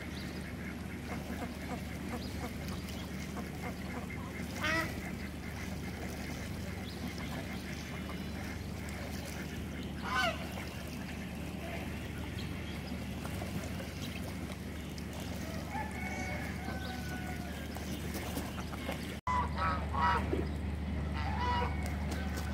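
Domestic geese honking: single short honks about five and ten seconds in, then several honks in quick succession near the end, over a steady low hum.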